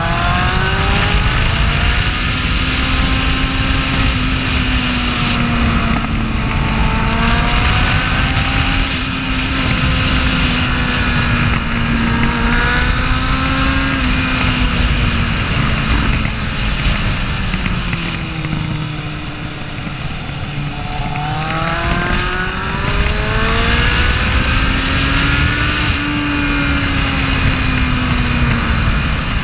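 Kawasaki Z750's inline-four engine under way, its pitch rising and falling with the throttle, dropping lowest around twenty seconds in before climbing again. Steady wind rush over the microphone runs underneath.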